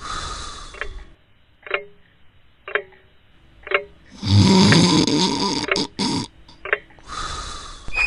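A sleeper snoring: a softer breath at the start, a long loud snore about four seconds in, and another soft breath near the end. In the quiet gaps an alarm clock ticks about once a second.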